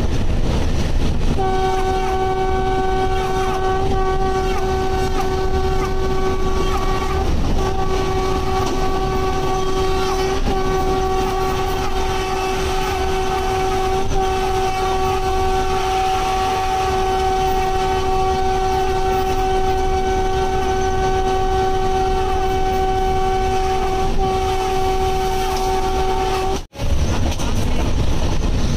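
WAP-5 electric locomotive's horn sounded almost continuously as one steady note with a few short breaks, heard from inside the cab over the steady rumble of the running locomotive and wheels. The horn cuts off suddenly near the end.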